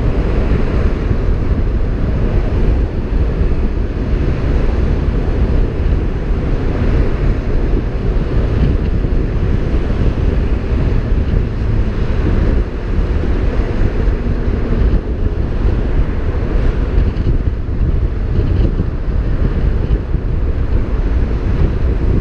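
Steady wind buffeting a car-mounted action camera's microphone at freeway speed, over the rush of tyres and road noise from the moving car and the traffic around it.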